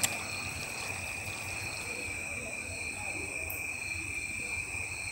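Insects chirring steadily, several high-pitched trills sounding together without a break. A single sharp click at the very start.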